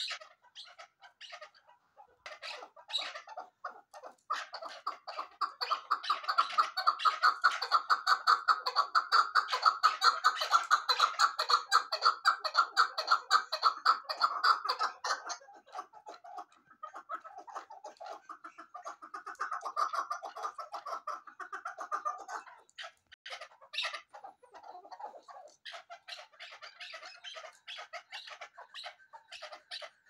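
Chukar partridges calling: long runs of rapid, repeated chuck notes. The loudest run lasts from about four seconds in to about fifteen, followed by shorter, quieter bouts.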